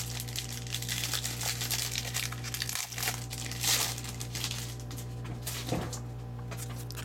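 Plastic wrapping crinkling and tearing as a sealed box of trading cards is unwrapped and opened, in irregular crackling handfuls.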